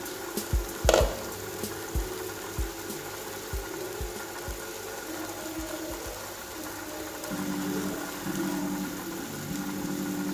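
Background music with soft low beats, then sustained low notes that change from about two-thirds of the way in.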